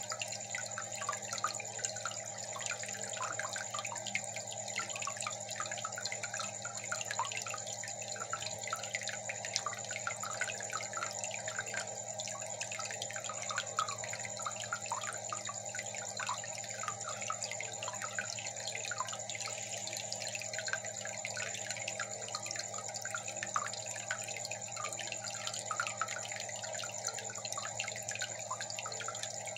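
Aquarium water bubbling and trickling, with air bubbles rising and popping at the surface in a fast, irregular patter, over a steady low hum.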